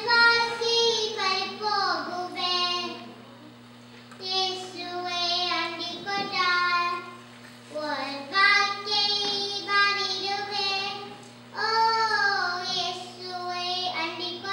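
A young boy singing solo into a microphone, in phrases with held and sliding notes and short breaks between them, with no instruments heard. A steady low electrical hum from the sound system runs underneath.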